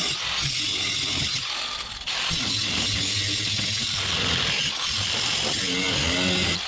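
A power tool cutting through the sheet metal of a utility truck box, running loudly and steadily with a brief let-up about two seconds in.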